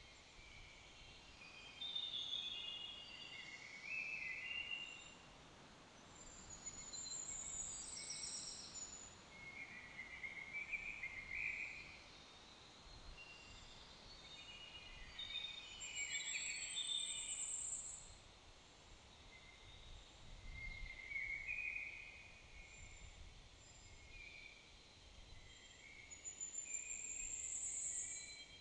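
Songbirds singing in woodland, in short separate phrases, with one high bright phrase coming back about every nine or ten seconds. Under them is a faint steady hiss of background noise.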